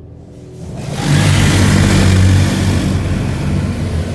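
Car engine revving up as the car pulls forward, with a loud hiss over it. Both come in sharply about a second in and hold steady.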